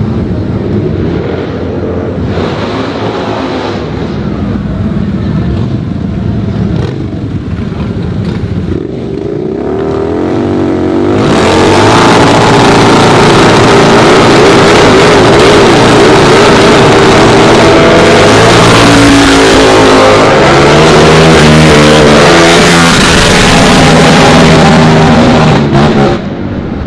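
Harley-Davidson Night Rod's V-twin engine revving, climbing in pitch about ten seconds in. From about eleven seconds a loud, sustained noise of the rear tyre spinning in a burnout joins the engine held at high revs, and it cuts off suddenly near the end.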